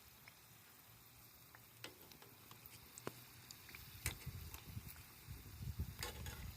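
Cooking oil frying faintly, with scattered sharp pops and crackles; a low rumble comes in about four seconds in.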